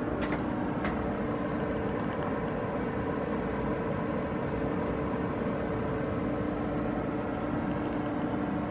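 A steady mechanical hum at a constant pitch, with two faint clicks in the first second.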